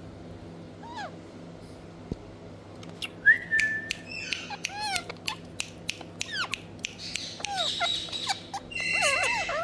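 Ringneck parakeets chirping and squawking: short arching and falling chirps mixed with sharp clicks. The calls grow busier from about three seconds in, with harsher, screechy calls near the end.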